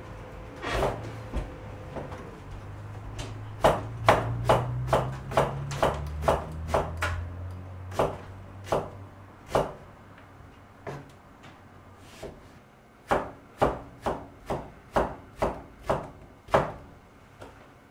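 Kitchen knife slicing an eggplant on a plastic cutting board, each cut ending in a sharp knock of the blade on the board. A few single cuts, then a quick run of about three cuts a second that slows and stops, and after a pause a second run.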